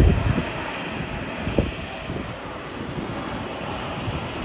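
J-AIR jet airliner coming in to land, its engines a steady rushing noise, with a few short low thumps about a second and a half in.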